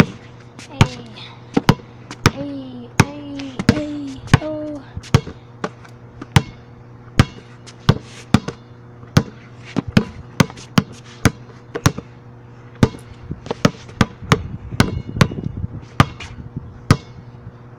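Spalding basketball dribbled on pavement: a steady series of sharp bounces, about three every two seconds.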